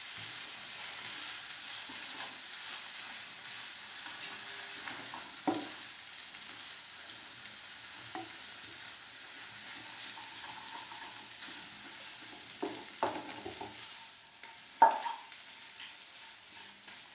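Noodles, vegetables and beaten egg sizzling in a frying pan while a wooden spatula stirs and tosses them, with a few sharp knocks of the spatula against the pan. The sizzle slowly thins out.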